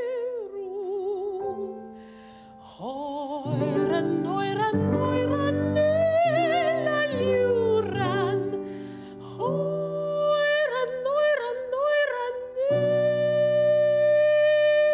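Classical soprano voice singing with wide vibrato over sustained accompaniment chords, with a short break about two seconds in and a long held note near the end.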